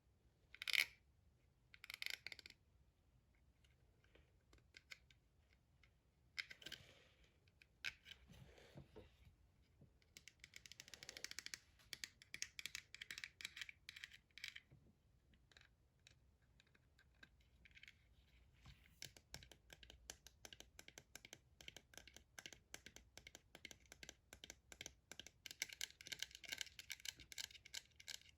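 Typing on a gaming keyboard: a few single louder key clicks at first, then two long runs of fast keystrokes, the second running to the end.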